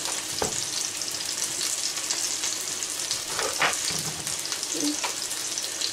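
Chicken frying in a pan, a steady sizzle, with a few knocks of a knife cutting through a bell pepper onto a bamboo cutting board.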